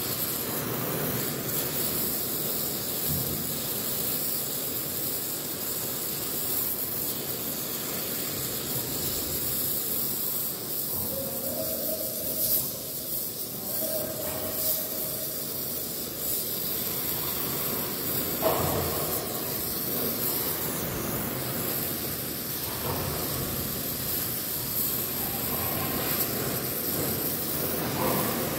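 Oxy-fuel torch flame hissing steadily while brazing a copper refrigeration pipe joint.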